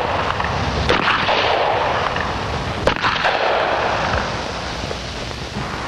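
Two revolver shots about two seconds apart, each followed by a long echoing decay.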